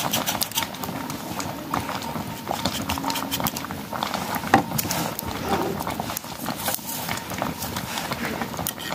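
Short, sharp clicks and scraping strokes of a curved hand sickle cutting and shaving something small held in the hand, over a crackling wood fire.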